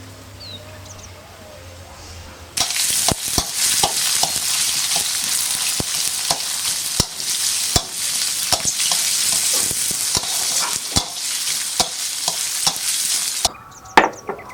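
Food frying in hot oil in a pan, sizzling loudly while a spatula stirs it and clicks and scrapes against the pan. The sizzle starts about two and a half seconds in and cuts off abruptly near the end.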